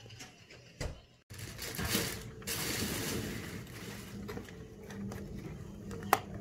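Shih Tzu puppy nosing and pawing at a shallow cardboard box lid on carpet: rustling and scraping, with one sharp click near the end.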